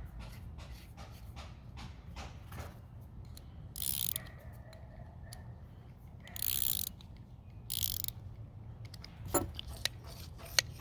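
Metal parts of a vintage blow torch's hand air pump being worked by hand, with light clicks and knocks and three short hisses about four, six and a half and eight seconds in.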